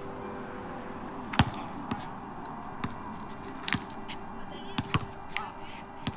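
A basketball bouncing on an outdoor hard court during a pickup game, as a series of irregularly spaced sharp thuds, the loudest about a second and a half in.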